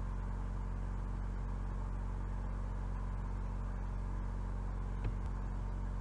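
Steady low electrical hum with a background hiss, and a faint single tick about five seconds in.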